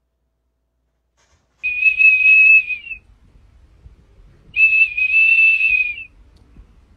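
A small plastic whistle held in a golden retriever's mouth, blown in two long, steady, shrill blasts with a pause between them, each ending in a brief upward flick.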